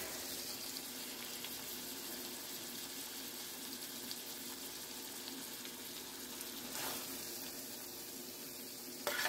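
Ground meat with diced peppers and onions sizzling in a stainless-steel Calphalon skillet: a steady frying hiss, with a brief louder rise about seven seconds in.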